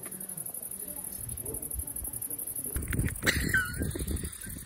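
Crickets chirping in a steady, high, fast-pulsing chorus, with a short voice or laugh about three seconds in.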